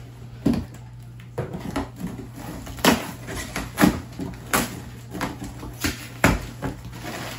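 Cardboard shipping box being unpacked by hand: a series of irregular sharp knocks, thuds and rustles as the box is handled and a wrapped shoebox is pulled out, busiest in the middle.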